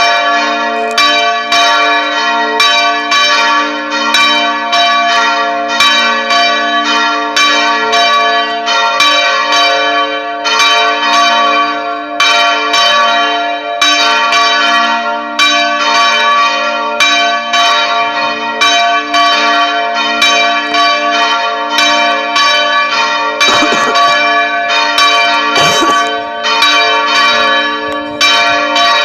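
Church tower bells ringing in a rapid, continuous peal, several strokes a second, their tones ringing on and overlapping.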